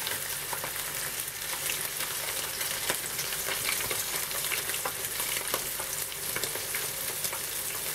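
Small flour-dredged tugun fish frying in hot oil in a frying pan: a steady sizzle with many small pops as the oil spatters.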